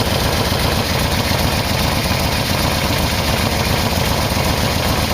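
Yamaha VMax V4 motorcycle engine idling steadily, with its carburettors hooked up to a homemade vacuum gauge for syncing.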